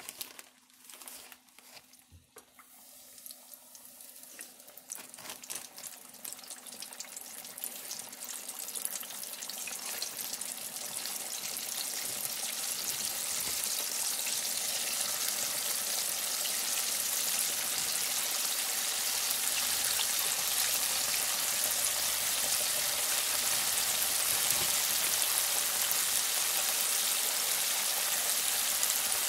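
Hot oil in an electric deep fryer sizzling around floured bass pieces. It starts as scattered crackles and pops and builds over the first dozen seconds into a steady, dense sizzle as the fish cooks.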